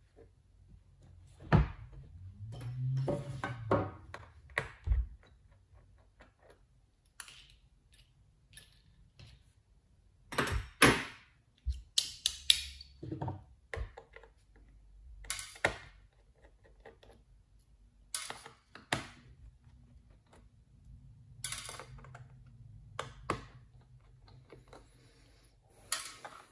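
Scattered clicks, taps and knocks of an aluminium MacBook Air being turned over and set down and of small screwdrivers being picked up and put down around it, with quiet stretches between.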